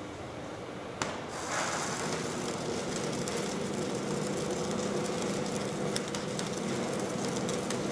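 Schlatter flash butt welding machine flashing the ends of a rail. After a sharp click about a second in, a dense crackling of sparks sets in and carries on over a steady hum. This is the flashing stage that heats the rail ends before they are forged together.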